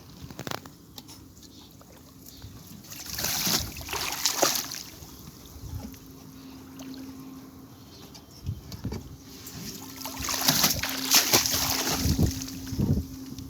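Water splashing and sloshing in two spells, about three seconds in and again around ten seconds in, over a faint steady hum.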